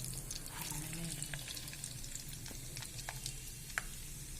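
Peanuts frying in hot oil in a kadai: a steady sizzle with scattered sharp crackles, the loudest just under four seconds in.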